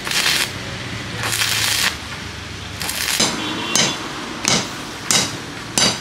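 Stick (arc) welding on a steel strip: the arc crackles and hisses in bursts, two half-second runs and then a string of short strikes about every 0.7 s, typical of tacking a joint.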